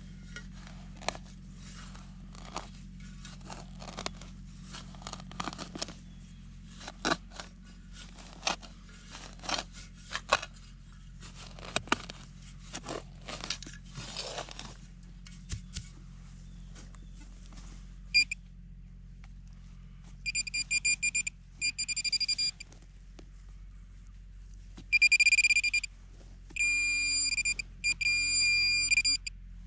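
Scraping and clicking of digging in soil for the first half, then a metal detector's electronic tone sounding in several bursts of rapid beeps, signalling metal in the hole.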